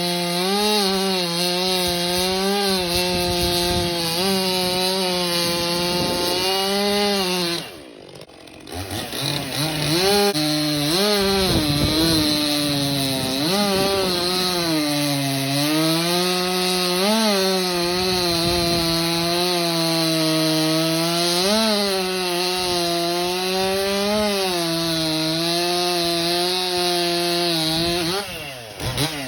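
Stihl MS 400 two-stroke chainsaw running at high revs while cutting ash wood, its pitch sagging and recovering as the chain bites. About eight seconds in it drops away briefly, then revs back up and carries on cutting; near the end it drops away again.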